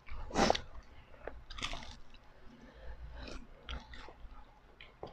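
Crunchy bites and chewing of fried dynamite chili rolls, close to the microphone: two loud crunches in the first two seconds, then softer, scattered chewing crunches.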